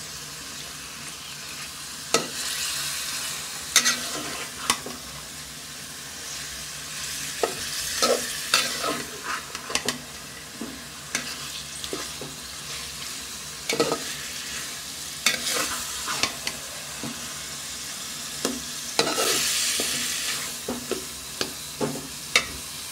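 Chicken pieces frying in spice paste in an aluminium pot, sizzling steadily while a metal spatula stirs and scrapes against the pot, with irregular knocks and scrapes throughout. This is the bhuna stage, the chicken being browned in the masala before the pot is covered.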